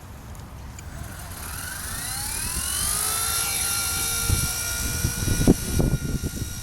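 Blade mCP X micro RC helicopter's electric motor and rotor spooling up in a rising whine that levels off into a steady high whine. Gusts of wind buffet the microphone from about four seconds in.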